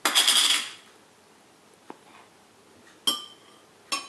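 A spoon knocking against a bowl: a short clatter at the start, then two sharp ringing clinks about three and four seconds in.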